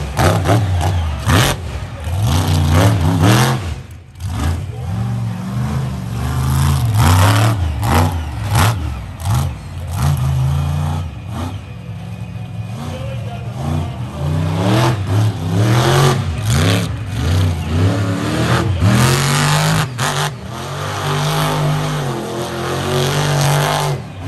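Monster truck engine revving loudly in repeated throttle blasts, its pitch climbing and dropping again and again as the truck wheelies onto crushed cars and drives around the dirt arena.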